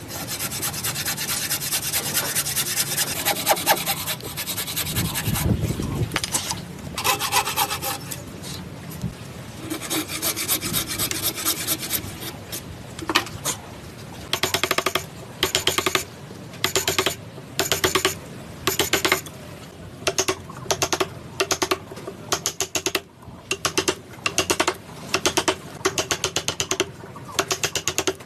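A hand tool scraping across wood: rough continuous scraping at first, then regular back-and-forth strokes about one a second, each a rapid rasping rattle.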